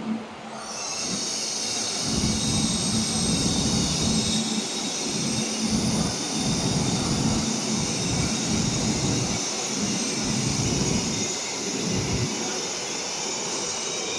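CRH380AL high-speed train running slowly alongside the platform as it brakes to a stop: a steady high-pitched hiss or squeal from brakes and wheels over an uneven rumble of wheels on the rails. The high sound begins about a second in.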